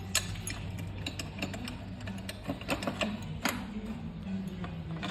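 Metal tools and parts clicking and clinking irregularly as the MTZ tractor's brake assembly is worked on, over a steady low hum.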